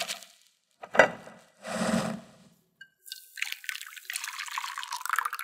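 Thin pastry-cream base of milk, egg yolks, sugar and starch pouring from a glass bowl into a saucepan, a continuous splashing trickle from about three seconds in. Before it come a single sharp knock about a second in, the loudest sound, and a short scuff.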